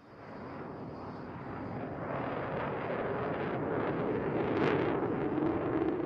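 F-16 fighter jet's engine noise, a wide rushing rumble that grows steadily louder from near silence, with a brief higher hiss about three-quarters of the way through.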